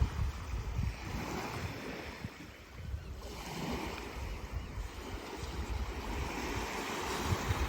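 Sea waves washing onto the shore, with wind buffeting the microphone in low gusts. The surf dips a few seconds in, then a new wave swells up.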